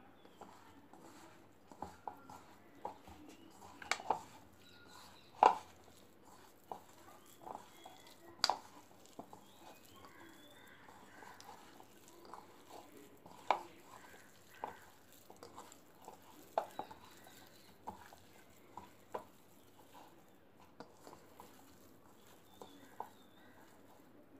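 Hands kneading raw prawns into a thick masala of spice powders, flour and paste in a plastic bowl: soft squishing with irregular knocks and taps against the bowl, the loudest a little over five seconds in.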